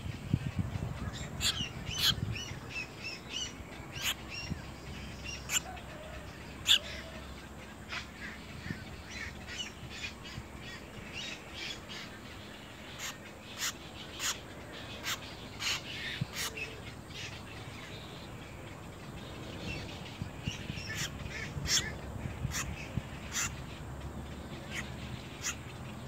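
Little egret nestlings giving short, harsh calls, many brief sharp notes scattered irregularly, some in quick clusters.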